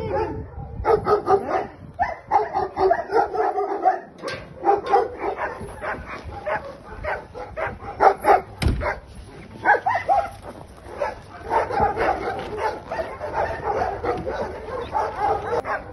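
Many dogs in pound kennels barking and yelping over one another without a break, with one sharp knock a little past the middle.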